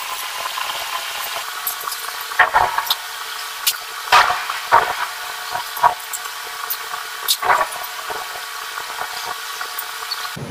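A thin, steady hiss with scattered light clicks and knocks, the loudest a few seconds in, from hands handling an electrical cable and pressing it into plastic wiring molding on a ceiling beam.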